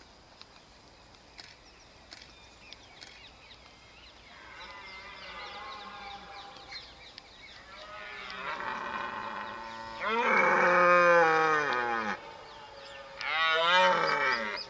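Rutting red deer stags bellowing: a series of drawn-out calls with falling pitch that grow louder, the loudest two about ten and thirteen seconds in. A few faint knocks come before the calls.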